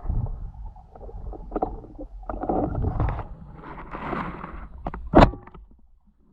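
Muffled underwater rumbling and sloshing of water moving past the camera during a pike spearfishing dive, with one sharp, loud click about five seconds in.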